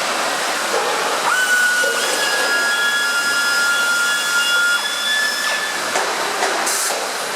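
Robotic welding cell running: a steady hiss with several high machine whines from the robots' drives, which rise and settle about a second in and stop around five seconds.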